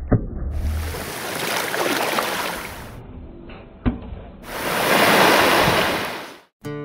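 Surf washing onto a beach in two rushes, the second the louder, with a sharp knock just before each. The sound cuts out near the end and strummed acoustic guitar music starts.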